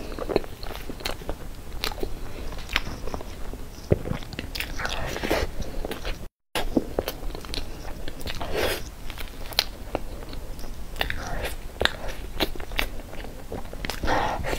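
Close-miked eating sounds of a person eating soft cream cake from a spoon: wet lip smacks and chewing with many sharp clicks, and a brief cut-out in the sound about six seconds in.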